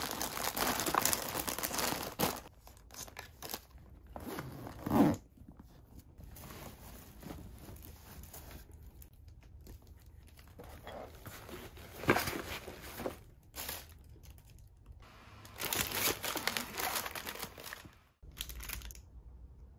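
Plastic snack packaging and plastic bags crinkling as items are handled and packed into a suitcase. The crinkling comes in irregular bursts: a long one at the start, then short ones about five seconds in and around twelve seconds, and a longer one near the end.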